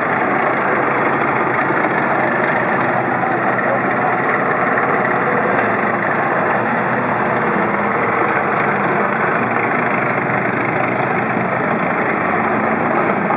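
Engine of a heavy tracked military vehicle running steadily as it drives in the rain.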